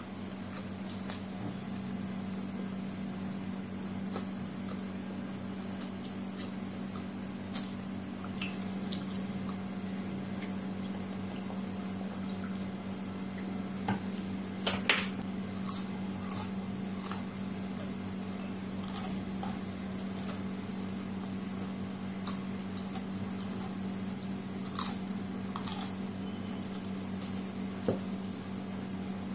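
Close-up eating sounds: scattered wet smacks and clicks of chewing fried chicken and jalebi and of fingers picking food off a banana leaf, busiest about halfway through and again near the end, over a steady background hum.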